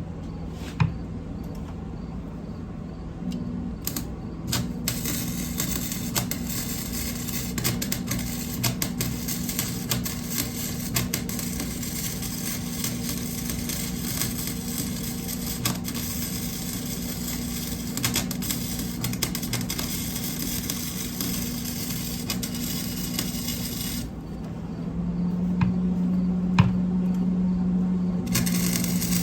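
Arc welder welding exhaust pipe pieces onto a muffler: a steady crackling sizzle dotted with sharp pops. It starts a few seconds in and cuts off abruptly about five seconds before the end, over a steady low hum that grows louder once the welding stops.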